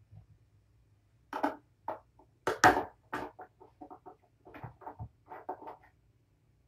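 Kittens play-wrestling in a fabric cat bed: a run of short, uneven scuffles, rustles and scratches of paws and bodies on the bed, loudest about two and a half seconds in, with no cries.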